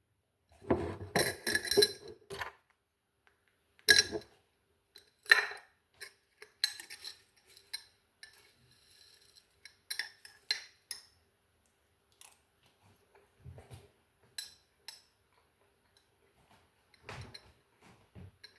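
Metal spoon scooping dry oats out of a jar, clinking and scraping against it: a busy run of scrapes in the first couple of seconds, then scattered single clinks, growing fainter toward the end.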